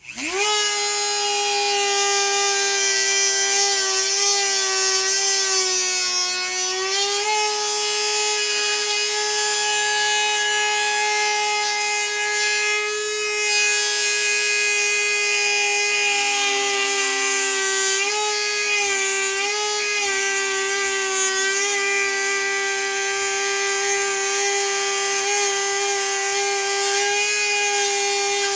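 Small electric power tool spinning up and running at high speed while cutting wooden dowels, a steady high whine. The pitch sags and recovers under load about six to seven seconds in, and dips briefly again around eighteen to twenty seconds.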